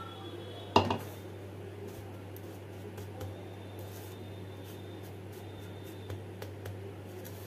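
A fish fillet being pressed into breadcrumbs by hand on a plate: soft gritty rustling with faint ticks, after one sharp knock about a second in. A low steady hum runs underneath.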